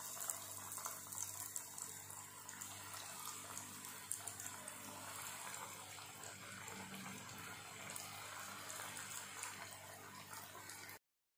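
Breadcrumb-coated potato cheese balls deep-frying in hot oil: a faint, steady sizzle with fine crackling. The sound cuts off abruptly just before the end.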